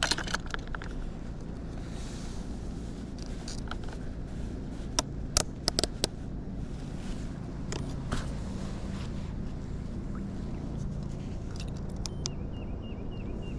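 Light clicks and knocks of gear handled in a kayak while a caught bass is weighed, over a steady low hum. A cluster of sharp clicks comes about five to six seconds in, and near the end there is a short run of quick high chirps.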